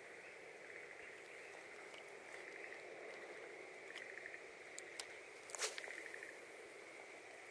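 Faint handling of a spinning rod and reel, with a few light clicks and a short swish about five and a half seconds in. A steady high trill runs in the background, pulsing now and then.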